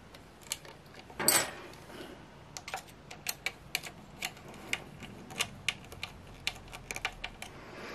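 Small screwdriver driving a screw into the plastic arm of a weather-station sensor unit: a series of light, irregular clicks and ticks of metal on plastic, with a brief louder scrape just over a second in.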